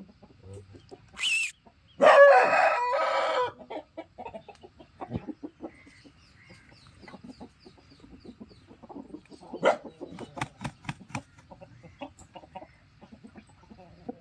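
Aseel rooster crowing once, a loud call of about a second and a half, starting about two seconds in. A short high squawk comes just before it, and soft clucking and scattered sharp clicks follow.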